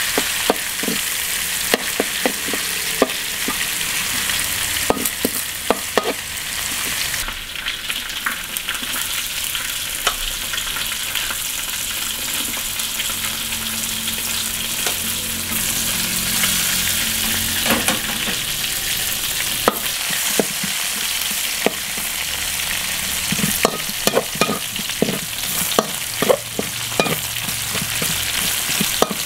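Chopped frog meat, garlic and sliced red chillies sizzling in hot oil in a steel wok, with a metal spatula scraping and clacking against the pan as the food is stirred. The clacks come in quick clusters near the start and again toward the end.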